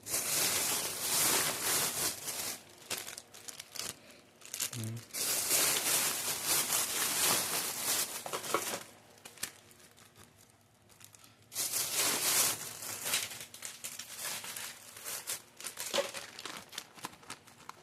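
Plastic snack packets and wrappers being handled and crumpled, crinkling in three long spells with short pauses between them.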